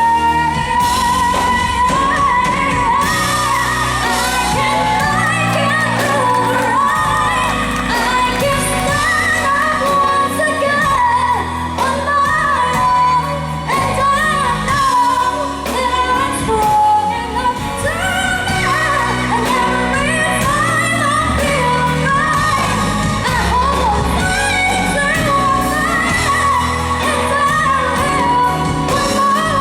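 A female pop singer belting wordless melismatic runs and ad-libs over a full band backing in a live power-ballad performance, in a large hall.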